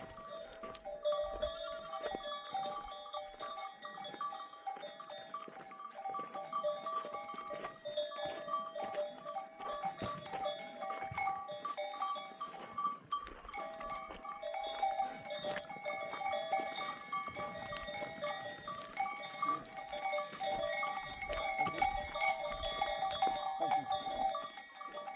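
Many livestock bells clanking and ringing together on a flock of sheep and goats as it moves.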